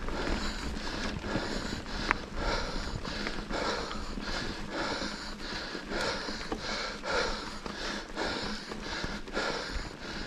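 Skis swishing on snow in quick rhythmic turns, about two to three swishes a second.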